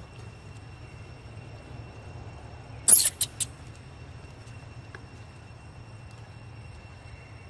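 A monkey giving a shrill, high squeal about three seconds in, followed by two shorter squeaks in quick succession.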